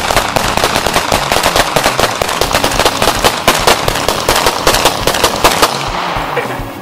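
Rapid, overlapping gunfire from several handguns fired at once, two pistols per shooter, giving a dense string of cracks many times a second that thins out and stops about six seconds in.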